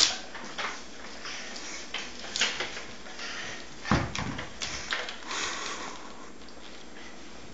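Scattered rustling and handling noises, with one low thump about four seconds in.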